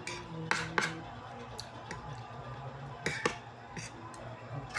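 Metal fork and spoon clinking and scraping on a plate of rice while eating: a few sharp clinks about half a second in, and more about three seconds in.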